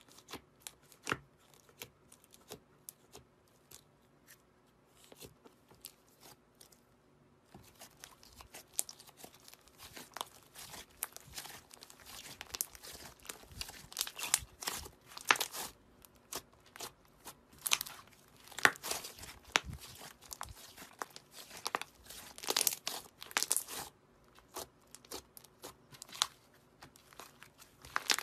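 Soft yellow slime being poked in its tub and then squeezed and kneaded by hand, giving sticky clicks and pops. These are sparse at first and grow denser and louder from about seven seconds in, coming in bursts as the hands squeeze.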